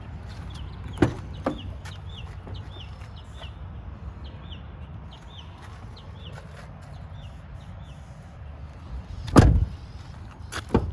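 2012 Ford F-150 pickup engine idling with a steady low rumble; the listing names an engine knock in this high-mileage engine. A run of short chirps repeats above it, and there are several thumps, the loudest about nine seconds in.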